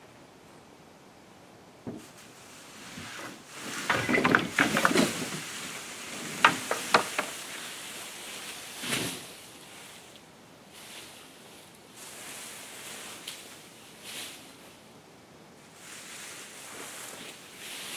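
Cut thuja branches being dragged off a trailer load and dropped onto a pile: bursts of rustling foliage and snapping twigs, loudest in two clusters about four and six and a half seconds in, with quieter rustles after.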